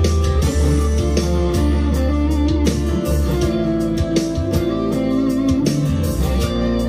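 Monoprice Indio Cali Classic Strat-copy electric guitar playing a lead line over a slow ballad backing track in F with bass and drums.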